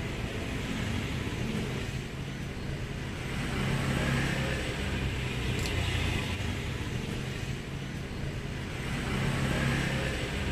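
Steady low background rumble with a haze of noise, swelling about four seconds in and again near the end, with one faint click about halfway through.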